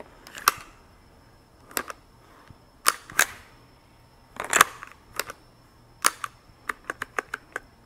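Sharp plastic clicks and snaps from a BlackHawk T-Series level 3 duty holster's retention as a red polymer training pistol is worked in and out of it. They come singly and irregularly at first, then as a quick run of small clicks near the end.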